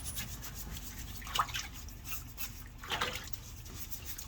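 Hand-scrubbing an engine valve cover in a tub of gasoline: repeated rubbing strokes with the fuel sloshing and dripping, two slightly louder splashes about a second and a half and three seconds in.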